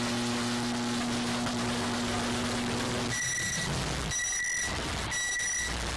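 Microwave oven running with a steady hum for about three seconds, then going quiet and giving its end-of-cycle beeps, three short high beeps about a second apart.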